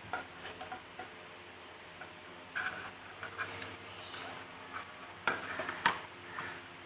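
Hard plastic parts of a monitor stand being handled and fitted together as the base clip goes on: scattered light clicks and taps, with two sharper clicks about half a second apart near the end.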